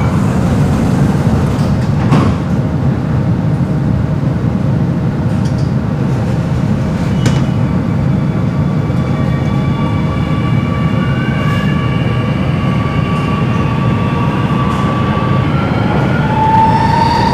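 Singapore MRT Circle Line train heard from inside the carriage: the doors shut with a knock about two seconds in, then a steady low rumble as the train pulls away. The traction motors' whine rises in pitch as it accelerates, most strongly near the end.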